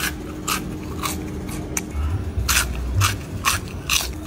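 Close-up crunching as crispy breaded chicken nugget sticks with a chilli coating are bitten and chewed: a series of short crackly crunches, roughly one every half second.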